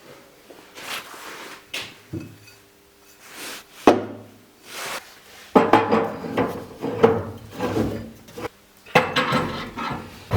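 Wooden pieces being handled on a workbench: scattered sharp knocks, then from about halfway a busier run of clattering and scraping.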